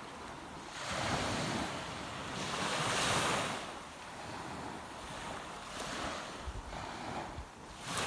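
Sea waves washing onto the shore, a rushing noise that swells and fades in several surges, the biggest about three seconds in.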